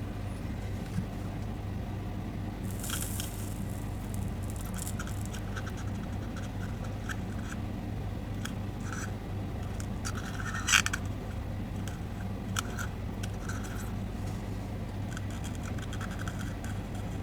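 Light scraping and small ticks of a soldering iron working stranded audio-cable wire over the solder pads of an amplifier circuit board, clearing the old solder, over a steady low hum. A brief hiss about three seconds in and one louder scrape about eleven seconds in.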